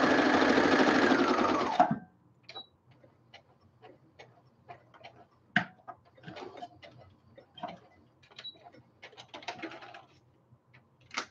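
Brother electric sewing machine running at speed while stitching along a fabric edge, then slowing and stopping about two seconds in. After that come scattered faint clicks and rustles as the fabric and threads are handled.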